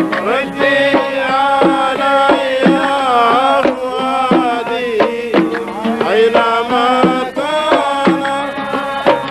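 Omani sawt music: an oud with mirwas hand drums beating a steady rhythm, under a sustained, gliding melody line.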